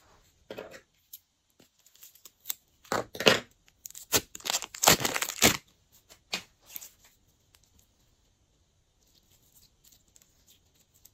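Glossy pink slime squelching and crackling as it is squeezed out of a piping bag and handled, in loud bursts between about three and six seconds in, with softer sticky sounds near the end.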